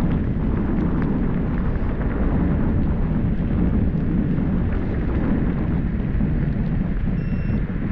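Steady low rumble of wind buffeting the microphone while travelling along a street, mixed with the running noise of the vehicle.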